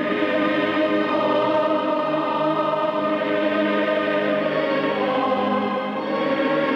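Choir singing slow, sustained chords, swelling in at the start.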